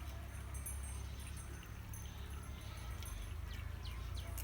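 Faint short bird chirps now and then over a steady low rumble.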